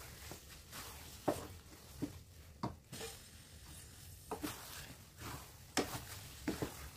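Wooden spatulas stirring and folding thick, sticky glutinous rice in a nonstick pan: soft squishing, with sharp knocks of wood against the pan every second or so.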